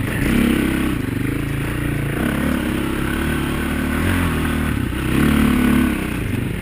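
Off-road dirt bike engine running under the rider, its pitch rising and falling as the throttle is worked.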